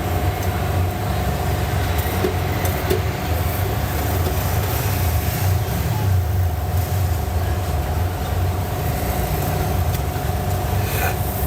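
Steady mechanical rumble with a constant hum over it, unbroken and even in level, with a few faint clicks.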